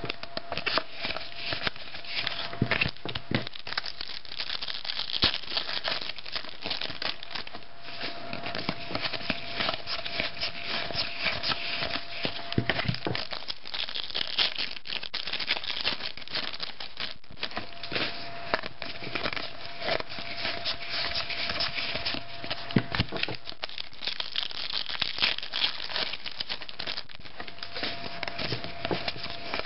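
Foil trading-card pack wrapper crinkling and tearing as it is opened and handled: a steady stream of crackles with sharper snaps now and then.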